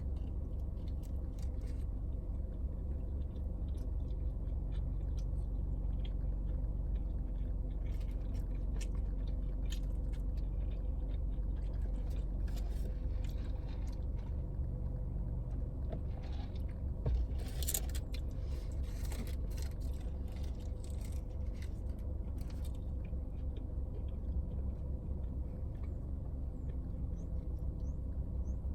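Close-up eating sounds: a person chewing and biting food, with scattered small mouth clicks and one sharper sound a little past halfway. A steady low hum runs underneath.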